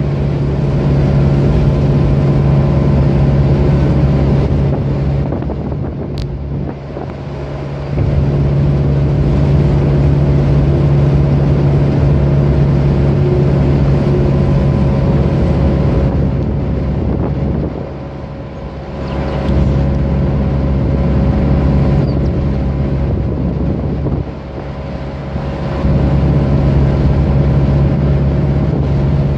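Car engine and tyre noise heard inside the cabin while driving on a highway: a steady drone with a strong low hum. It falls away three times for a second or two, then comes back.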